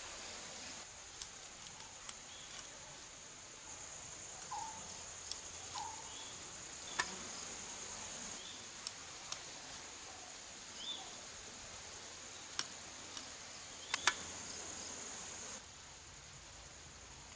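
Steady high-pitched insect drone, which drops away near the end, with about ten sharp taps and clicks from the knife work and handling of the fish, and a few short chirps.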